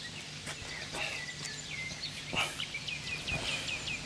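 Small birds singing: a quick run of short falling chirps, mostly in the second half, over a faint steady low hum. A few soft knocks sound through it, the clearest about two and a half seconds in.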